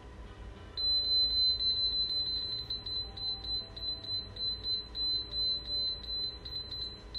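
Allenbuild GR-11R rotating-laser receiver's buzzer sounding a high-pitched beep that starts about a second in and pulses rapidly, about two pulses a second. It is the receiver's audible signal that it is picking up the rotating laser's beam off grade, its display showing an arrow.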